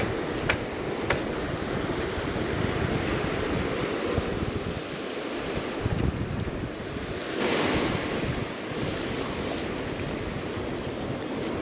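Ocean surf washing steadily over the rocks and tide pools, with wind buffeting the microphone. The wash swells briefly a little past halfway. A couple of light clicks come in the first second or so.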